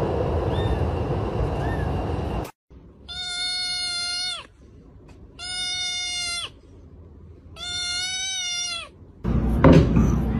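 Kitten meowing: three long, loud cries about a second apart, each held on one steady pitch. Before them, a steady background rumble with a couple of faint short mews.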